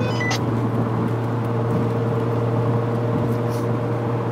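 Steady road and engine noise of a car driving, heard inside the cabin, with a constant low hum.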